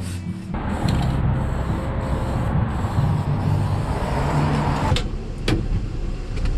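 Vehicle driving, with engine and road noise heard from inside the cab. The noise eases off about five seconds in, followed by two sharp clicks.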